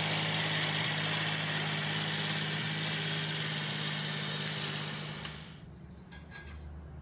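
Massey Ferguson 260 Turbo tractor's diesel engine running steadily. The sound stops about five and a half seconds in, leaving only faint clicks.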